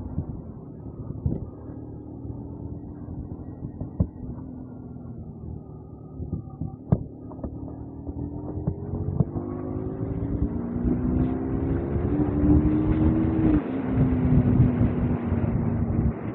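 Motorcycle engine running under a rider and passenger, its pitch rising as it picks up speed about halfway through and then holding steady, with wind on the microphone and a few short knocks.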